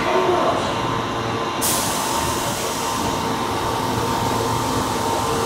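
Osaka Metro 22 series subway train moving along the platform of an underground station, a steady rumble with a few faint steady tones. A high hiss comes in sharply about one and a half seconds in and holds.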